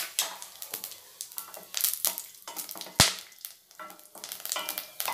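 Whole spices (cinnamon, cloves, cardamom, fennel seeds) spluttering in hot oil in a stainless steel kadai: a faint sizzle broken by irregular sharp pops, the loudest about three seconds in. A wooden spatula stirs them near the end.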